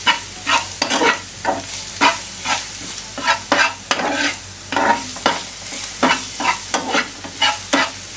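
Metal spatula scraping and stirring onion-tomato masala around a hot black pan, about two strokes a second, over the steady sizzle of the masala frying in oil.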